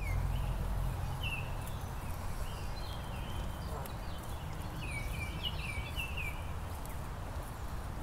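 Canada goose goslings peeping in short, high chirps, clustered most thickly about five seconds in, over a steady low rumble.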